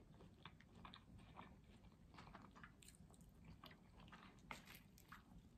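Near silence with faint, irregular chewing: soft mouth clicks of a person eating with the mouth closed.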